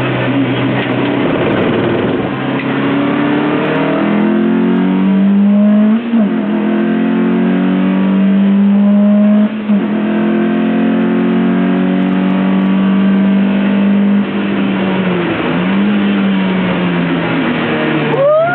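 Lotus Elise engine heard onboard, pulling hard under acceleration on track, the revs climbing and breaking off briefly twice for quick gear changes about six and nine and a half seconds in. Near the end the pitch dips and rises again over steady road noise.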